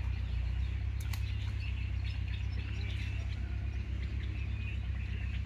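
Birds chirping in short, scattered calls over a steady low hum.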